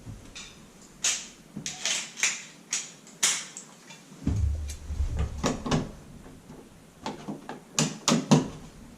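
Plastic light-switch wall plate being handled and fitted over a dimmer switch: irregular clicks, taps and scrapes of plastic against the switch and wall, with a dull bump around the middle and the sharpest clicks near the end.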